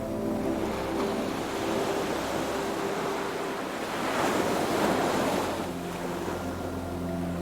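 Ocean waves washing in, one wave swelling up about four seconds in, over soft sustained music chords that shift about six seconds in.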